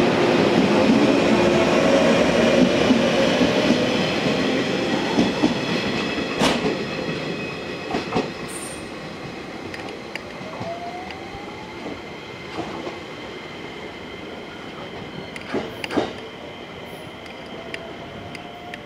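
Yellow JR West 115-series electric train pulling away down the track, its running noise fading steadily as it recedes. Sharp clicks of the wheels over rail joints come through a few times, and a brief rising whine sounds about ten seconds in.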